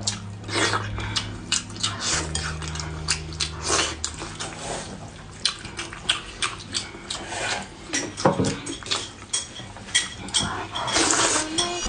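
Eating utensils clinking and scraping against a dish of Buldak fire noodles in a run of short, irregular clicks.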